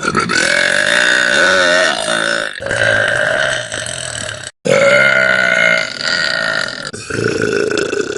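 Girls burping: a run of long, loud, drawn-out burps with wavering pitch, each one to two seconds long, one after another with abrupt cuts between them.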